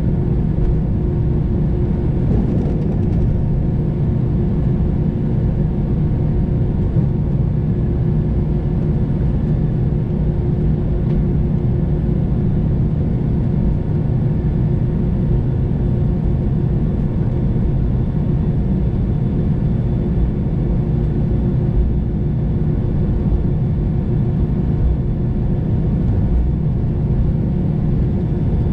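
Cabin noise of an Airbus A320 taxiing with its jet engines at idle: a steady hum and rumble with several constant tones running through it.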